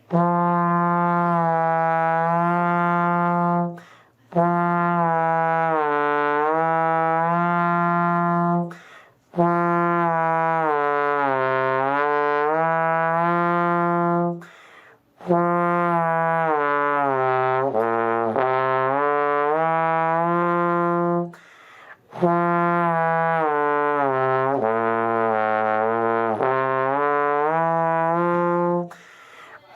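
Trombone playing the F major scale from F down and back up in connected notes, as a warm-up exercise. There are five long phrases, each starting on F, with short pauses for breath between them.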